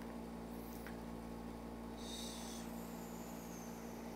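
Steady low electrical hum and faint hiss from the recording setup: room tone. A brief faint hiss comes about two seconds in.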